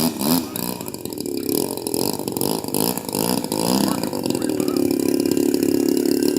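RC model airplane engine running, its pitch wavering up and down for the first few seconds, then settling into a steady note about four seconds in.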